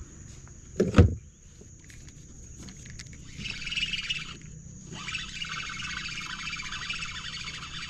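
Shimano Sahara spinning reel being cranked fast in two spells, a rapid whirring rattle from the gears and line, as a catch is reeled in. A single heavy thump about a second in.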